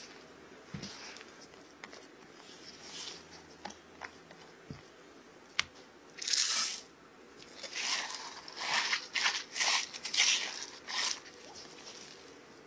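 Silicone spatula stirring and scraping thick batter against a glass mixing bowl. A few faint clicks come first, then a run of short crunchy strokes starts about halfway through.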